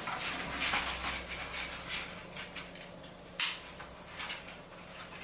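Handling of a POC Omne Air bike helmet and its chin straps: light rustling and scraping of strap webbing and plastic, with one sharp click about three and a half seconds in.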